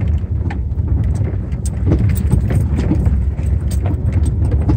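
Car heard from inside the cabin, driving slowly down a rough, rocky dirt trail: a steady low engine and tyre rumble, with frequent short knocks and rattles as the car jolts over the rocks.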